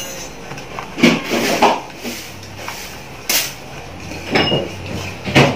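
Marinade being mixed in a stainless steel bowl: about five irregular knocks and clatters against the bowl, a couple of them with a brief metallic ring.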